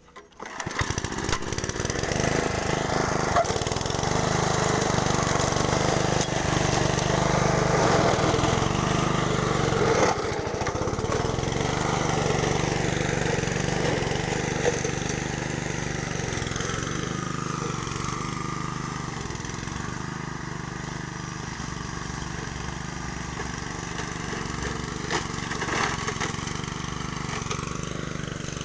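Honda self-propelled lawn mower's engine running steadily, starting abruptly at the beginning, with a brief dip about ten seconds in.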